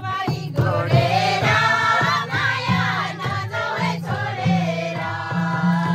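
Music: a song with voices singing over a steady low accompaniment.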